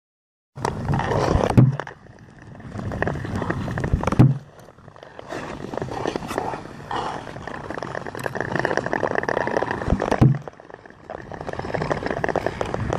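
Long-distance skate blades scraping and gliding over lake ice, a rough, noisy sound that stops and starts abruptly three times.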